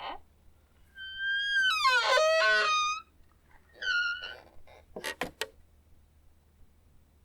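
Creaky door hinge squealing as a door is opened slowly: a long, loud squeal whose pitch wavers up and down, then a shorter creak, then a few quick knocks.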